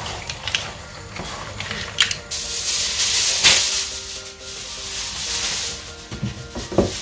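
Aluminium foil being pulled off its roll and crumpled, a loud rustling crackle that starts about two seconds in and dies down about a second before the end. It follows a few light clicks of a metal spoon among mussel shells in the pan.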